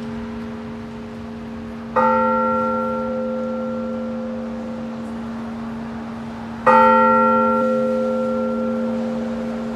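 Antique church bell cast in 1825, tolled in blagovest, the slow even strokes of a single bell calling to a service. It is struck twice, about four and a half seconds apart, and each stroke rings on with a long fading hum that carries into the next.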